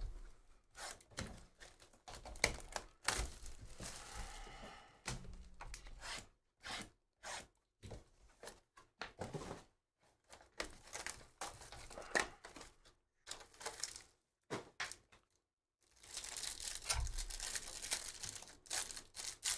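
Sports-card box and packs being opened by hand: scattered small knocks and clicks of cardboard and cards, then a longer stretch of wrapper tearing and crinkling near the end.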